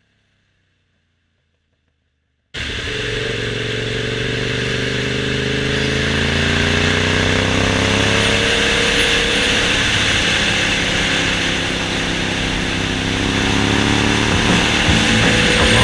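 After a couple of seconds of silence, a Honda VTR1000F's 90-degree V-twin engine sound starts suddenly and keeps running. Its pitch sinks slowly over a few seconds, then holds steady and rises a little near the end.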